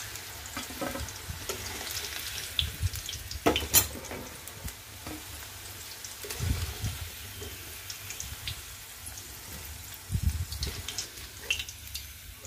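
Hot mustard oil sizzling steadily in an aluminium kadhai as whole fried potatoes are scooped out with a steel ladle. There are metal clinks of the ladle against the pan, the loudest about three and a half seconds in, and low knocks around six and ten seconds in.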